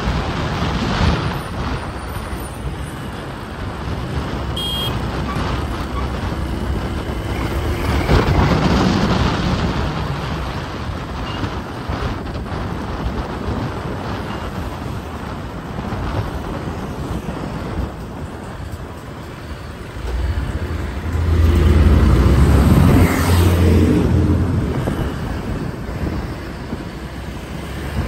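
Road traffic on a busy multi-lane city road heard from a moving vehicle: a steady mix of engine and tyre noise. It swells louder as heavier vehicles pass at about eight seconds and again for a few seconds past the two-thirds mark. A short high beep sounds about five seconds in.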